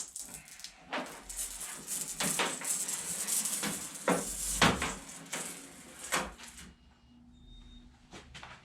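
Side trim being peeled by hand off a car body, tearing and scraping away from its adhesive with a few sharp knocks, then going much quieter near the end; the trim comes away easily without heat.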